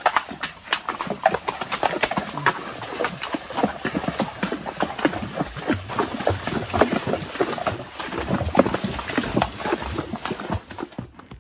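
Horse hooves walking through a shallow, rocky creek, splashing water and knocking on stones in an irregular run of clops, several a second.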